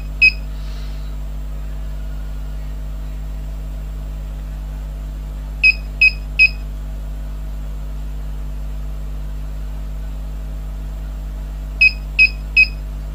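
Converted UPS humming steadily under about a 130 W load, its beeper sounding short high beeps in sets of three, about six seconds apart.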